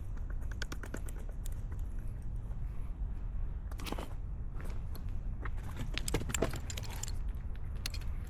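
Irregular light clicks and rattles of gear being handled, with a few short scraping rustles, over a steady low rumble.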